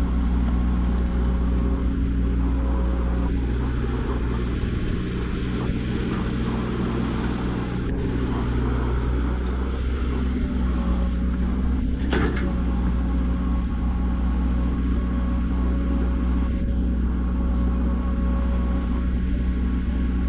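Diesel engine of heavy construction machinery running steadily at a low, even pitch. A single sharp metallic knock comes about twelve seconds in.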